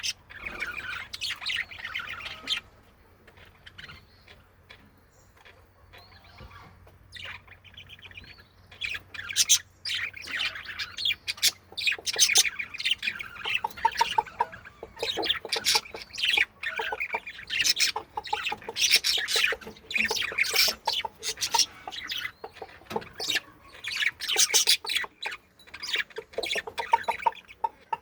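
Budgerigars chattering and chirping, with short squawks. The calling drops off for a few seconds after the start, then comes back busy and continuous.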